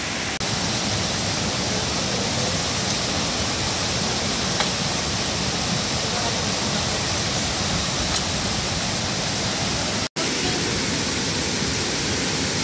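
Waterfall rushing: a steady, even roar of falling water that cuts out for an instant about ten seconds in.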